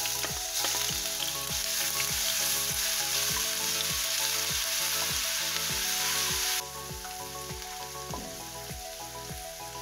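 Ginger-garlic paste sizzling loudly in hot oil with mustard seeds in a nonstick wok as it is stirred with a spatula. The sizzle drops suddenly to a quieter frying about two-thirds of the way through.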